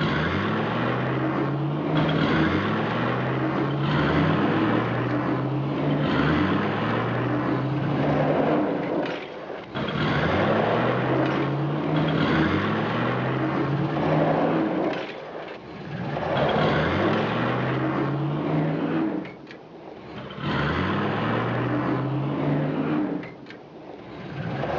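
Tank engine revving up over and over as it drives off, its pitch climbing and dropping back about once a second, with a few brief lulls between runs.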